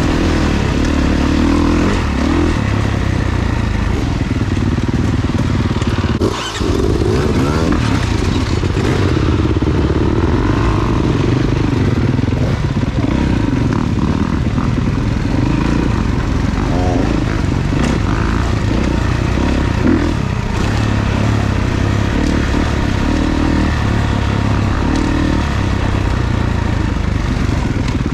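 Off-road dirt bike engine running hard on a trail, its revs rising and falling with the throttle, with a brief drop in loudness about six seconds in.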